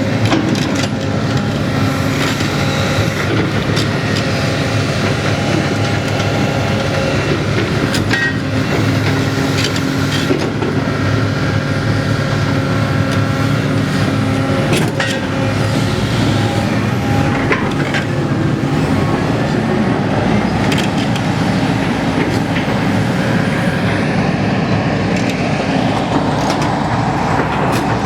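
Engine of a heavy road-works machine running steadily under load, with scattered sharp metallic clanks and knocks.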